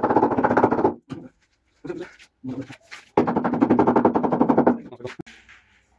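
A rapid mechanical rattle of fast, evenly spaced knocks in two bursts: one about a second long at the start, the other about a second and a half long from about three seconds in. Short bits of voice come between the bursts.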